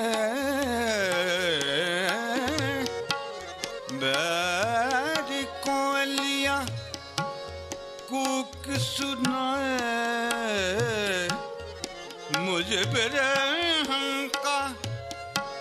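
Hindustani thumri performance: a singer's voice in fast, wavering ornamented runs over a steady drone, with tabla strokes thumping underneath.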